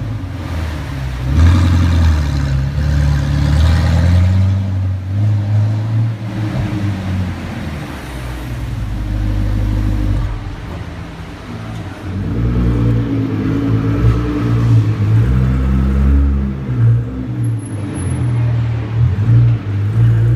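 Audi R8 with an Akrapovič exhaust revved at standstill in a series of quick blips, the engine note rising and falling. There is a steadier lull in the middle, then another run of revs about twelve seconds in.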